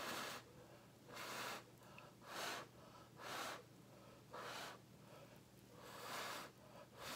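A person blowing short, hissy puffs of breath onto wet poured acrylic paint, about one puff a second, to push the paint out from the middle so the cells rise up again.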